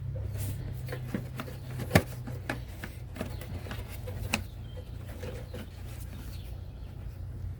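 Scattered light clicks and knocks of plastic parts being handled while a windshield washer pump and its hose are pushed into place, with one sharper knock about two seconds in, over a steady low hum.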